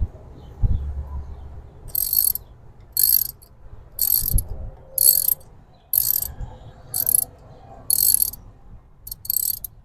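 Socket ratchet wrench turning a spark plug in the engine, clicking in short rapid runs on each back-stroke, about once a second, eight or so strokes from about two seconds in.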